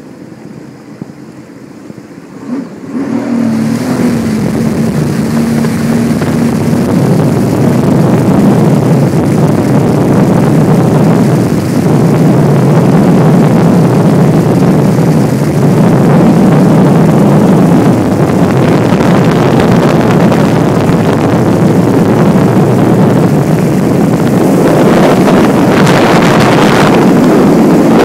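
A 2012 Sea-Doo RXP-X personal watercraft running, picking up about three seconds in and then running hard at speed, with heavy wind noise on the microphone.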